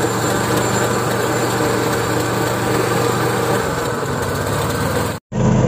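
Mini tractor engine running steadily while its rear rotary weeder churns the soil between crop rows. The sound cuts out abruptly near the end and comes back louder.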